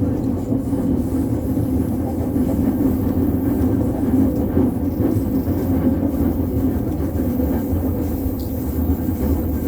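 JR Chūō–Sōbu Line commuter train running, heard from inside the carriage: a steady, even rumble with a constant low hum.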